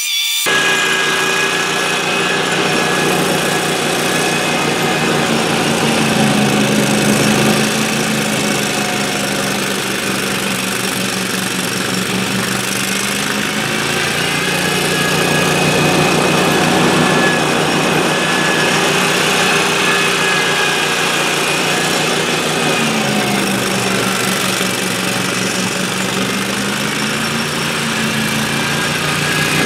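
Exmark zero-turn mower's engine running steadily while its front-mounted 52-inch Toro snowblower throws snow. The engine note dips and recovers twice, once about six seconds in and again past twenty seconds.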